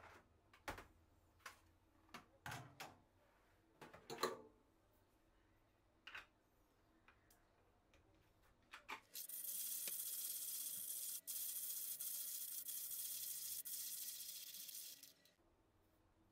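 Scattered light clicks and knocks, as of kitchen utensils and coffee equipment being handled, then a steady high hiss that starts about nine seconds in and cuts off about six seconds later.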